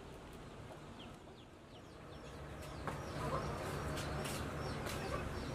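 Chicks peeping: a run of short, high, falling cheeps repeated throughout, with a single sharp knock about three seconds in.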